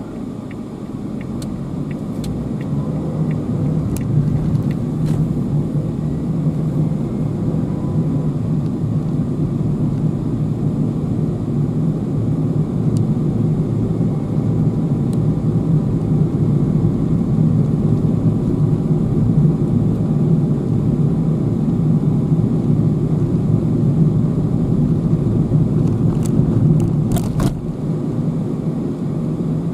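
Car driving, heard from inside the cabin: a steady low rumble of engine and road noise that builds over the first few seconds as the car picks up speed. A few sharp clicks are scattered through it, with a short cluster of them near the end.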